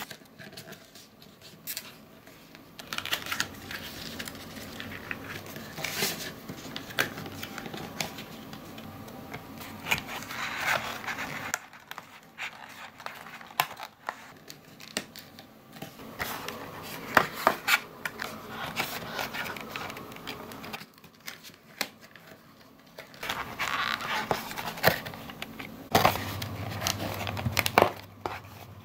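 Thin printed cardboard being handled, bent and folded by hand: irregular rustling and crinkling with frequent sharp clicks and taps.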